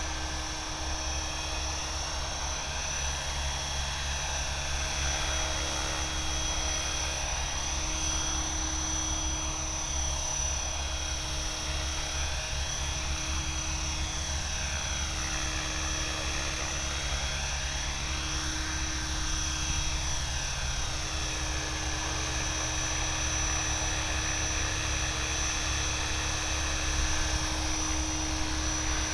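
Align T-Rex 550E electric RC helicopter in flight: the steady whine of its electric motor and gears with the whirr of the rotor blades, the blade sound sweeping up and down in pitch as it moves about.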